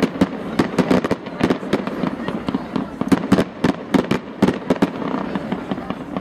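Fireworks display firing: a rapid, irregular string of sharp bangs and pops from launching comets and bursting shells, several a second. The strongest bangs come a little after three seconds in.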